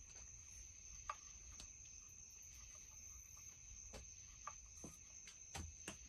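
Faint, scattered clicks of a hand tool tightening down screws on a chainsaw, about seven light ticks at uneven intervals, over a faint steady high-pitched tone.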